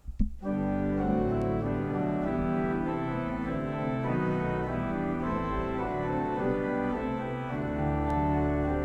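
Church organ starting up with a short knock, then playing slow, sustained chords that change every second or so.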